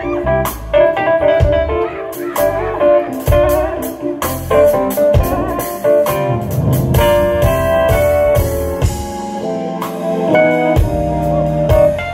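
Live band playing an instrumental passage: drum kit, bass, electric guitar and keyboards, with a melodic lead line over a steady beat.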